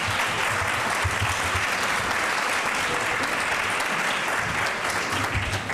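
Audience applauding steadily in a lecture hall.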